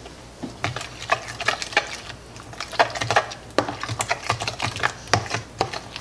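Metal utensil stirring a thick mayonnaise dressing in a plastic container, scraping and clicking against the sides in quick, irregular strokes that begin about half a second in.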